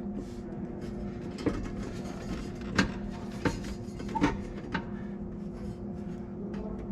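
A few sharp knocks and clunks, about five spread over a few seconds, as a battery tray and its hardware are worked into place in a pickup's engine bay.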